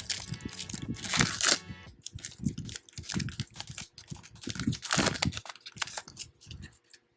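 A trading card pack's wrapper being torn open and crinkled, in short bursts, loudest about a second in and again around five seconds.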